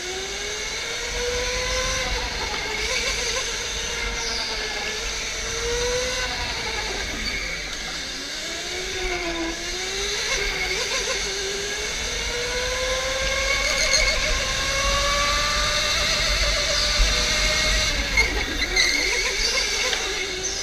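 OTL Storm electric go-kart's motor whining, its pitch rising and falling as the kart speeds up and slows through the corners, over a steady low rumble.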